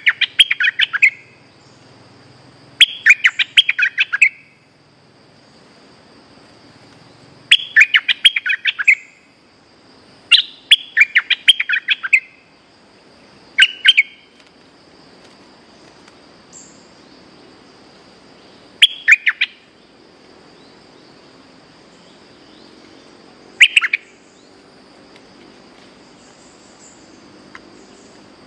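Bulbul singing: short bursts of quick chirping notes repeated every few seconds, coming thickly through the first half and as single short phrases later.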